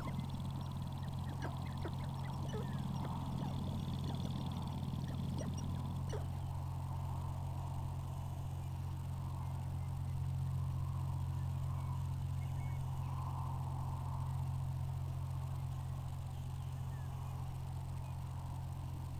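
Sharp-tailed grouse calling on a lek: scattered short clucks and calls in the first six seconds, then softer repeated calls from about 9 to 15 seconds in. A steady low hum runs underneath and is the loudest sound.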